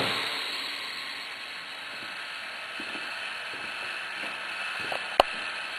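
A power drilling machine's running sound dies away in the first second, leaving a steady low hiss, with one sharp click about five seconds in.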